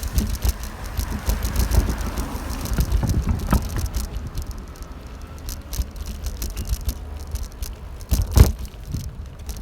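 Bicycle being ridden, its frame and parts rattling and clicking over the road, with a low wind rumble on the microphone and a hard knock about eight seconds in.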